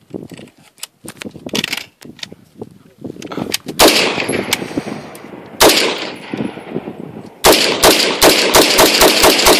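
AR-15 rifle firing on semi-automatic: a loud single shot, another about two seconds later, then a fast, even string of shots at about six a second as the trigger finger speeds up.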